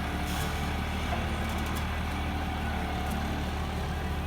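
A large engine running steadily, with a constant low hum.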